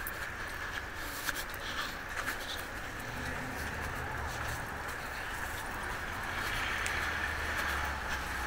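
Street traffic: a car engine's low rumble sets in about three seconds in and grows a little louder toward the end, over a steady street background with a few faint clicks.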